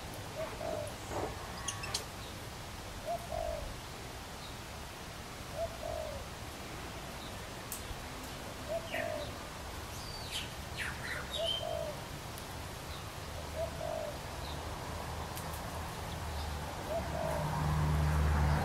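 A bird cooing: one short, low note repeated about every two and a half seconds, with a few higher chirps from other birds midway. A low rumble builds near the end.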